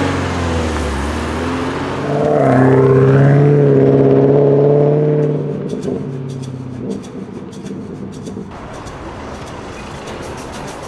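A car engine pulling away: it revs up about two seconds in, holds a steady note for a few seconds, then fades as the car drives off.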